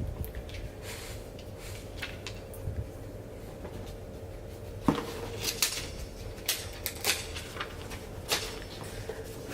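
A boxed makeup palette being handled and taken out of its cardboard packaging: light scraping and tapping, with a sharp click about five seconds in and several smaller clicks after, over a faint steady hum.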